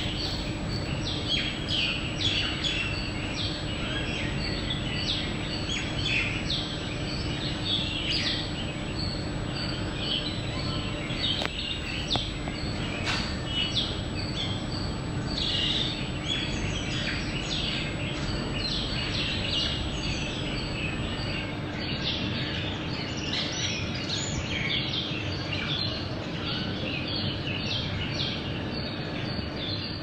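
Birds chirping: many short, high calls overlapping thickly, over a steady low hum.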